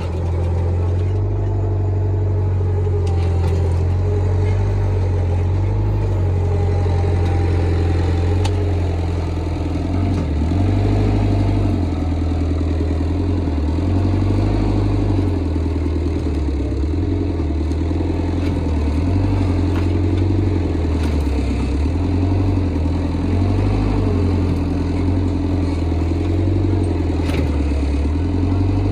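A vehicle engine running steadily at low speed, its note shifting and growing slightly louder about ten seconds in.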